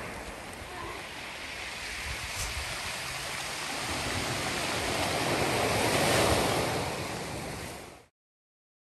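Surf breaking and washing up a pebble shore: a steady rush of waves that swells to its loudest about six seconds in, then fades and cuts off abruptly about eight seconds in.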